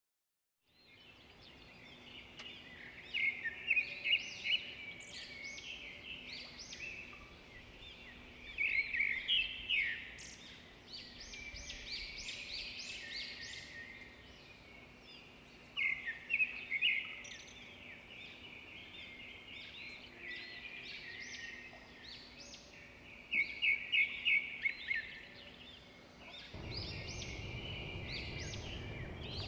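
Small birds chirping in quick clustered bursts every few seconds over a faint steady hum. Near the end a steady low rushing noise comes in.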